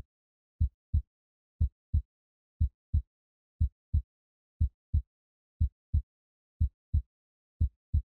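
A low double thump repeating about once a second, like a heartbeat, with silence between the beats.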